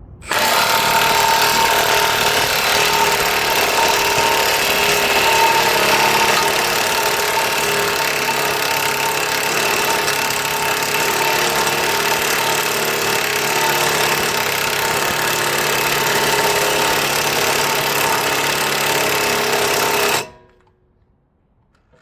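A power impact tool hammering continuously against a seized front hub assembly to drive it loose, a loud steady rattle that starts abruptly and cuts off suddenly about 20 seconds in.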